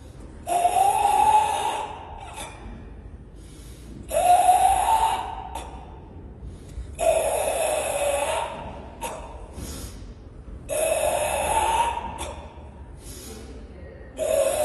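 Forceful ibuki breathing of Sanchin kata: a long, hissing exhalation about every three to four seconds, each lasting about a second and a half, with short, sharper breaths in between. Four full exhalations are heard, and a fifth begins near the end.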